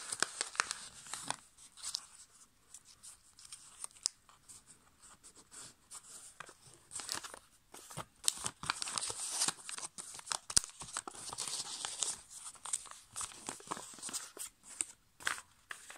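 A folded paper airplane of A5 copy paper rustling and crinkling as it is handled and its folds are pressed between the fingers. The rustles come irregularly, with a few short sharp crackles.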